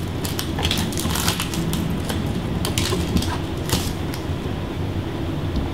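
Trading cards and foil pack wrappers being handled at a table: an irregular run of crinkles, rustles and small clicks over a steady low hum.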